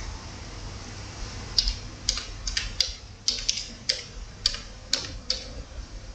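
Typing on a computer keyboard: about a dozen irregular key clicks as a single word is typed, starting about a second and a half in and stopping about five seconds in.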